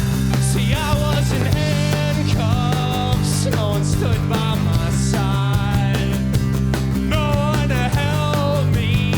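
Live rock band playing a song: a sung lead vocal over guitar, bass and steady drums.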